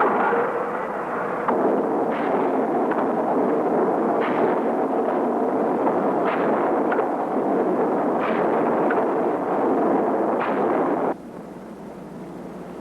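Factory machinery running as a dense, steady din, with a heavy bang about every two seconds like a press or power hammer striking. The noise drops away suddenly near the end.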